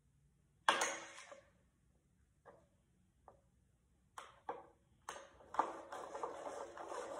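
Slime being made in a bowl: a sharp knock against the bowl about a second in, a few soft clicks, then continuous scraping and stirring from about five seconds in.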